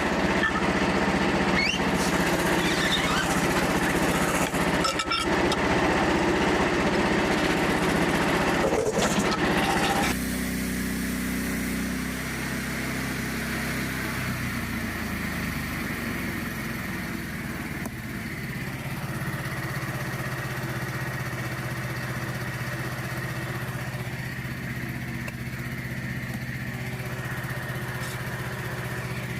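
Frontier OS27 portable bandsaw mill's small gasoline engine running, louder and rougher for the first ten seconds, then dropping to a quieter, steady lower hum for the rest.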